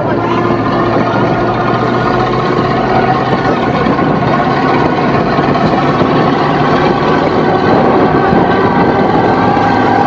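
A vehicle's engine running steadily under way, heard from on board: an even drone that gets a little louder through the stretch.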